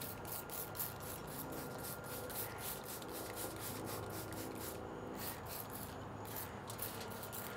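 Hand trigger spray bottle spritzing a smoked pork shoulder: many short hisses in quick succession, with a faint steady hum beneath.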